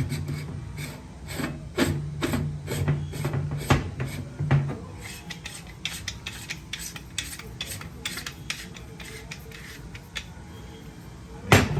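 Steel parts of a wireline lock being handled and screwed together by hand: a run of scraping, rubbing and small metallic clicks as the fishing neck is threaded on, with one sharper knock near the end.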